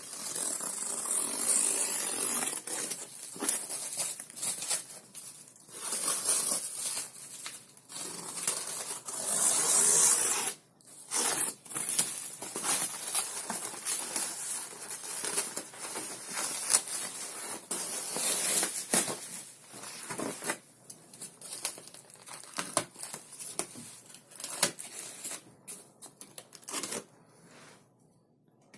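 Packaging being handled and torn open: rustling, crinkling and tearing, broken by short clicks and knocks, with a brief pause about ten seconds in.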